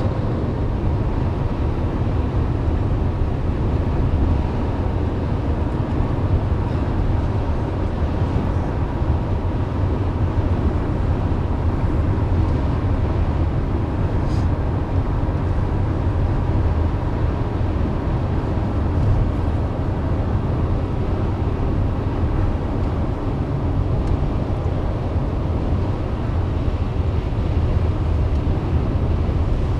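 Steady road and engine noise of a car driving at speed, heard from inside the cabin, with a low, even rumble.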